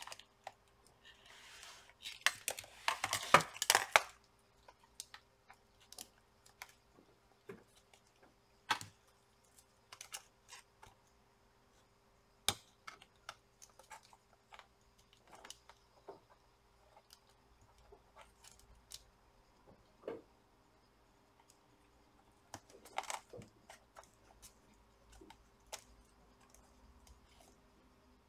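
Small plastic and metal laptop parts being handled during disassembly: scattered light clicks and taps, with a dense run of clicking and scraping about two to four seconds in and another short cluster near the end, as the speakers and their cable are worked out of the plastic palmrest.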